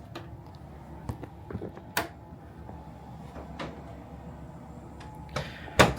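A few scattered clicks and knocks of small items being handled and set down, with a sharper, louder knock near the end.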